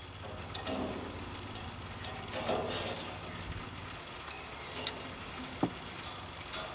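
Food being moved about on a hot grill: scattered light clicks and clinks of utensils on the grate over a steady low hum.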